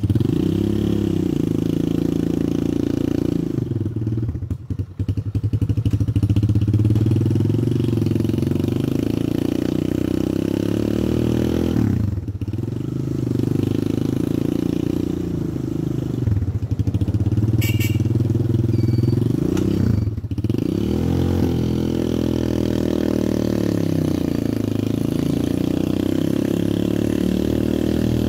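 A Chinese 250cc ATV quad bike's single-cylinder engine running under way. Its note climbs and falls with the throttle, and a few times dips sharply and then climbs again.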